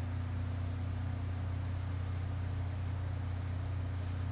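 Steady low hum with a faint even hiss over it; no distinct handling sounds stand out.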